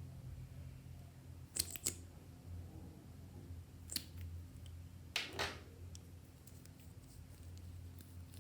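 Clear slime with makeup and clay being worked by hand, making a few short sticky clicks and pops and a longer crackling squelch about five seconds in, over a steady low hum.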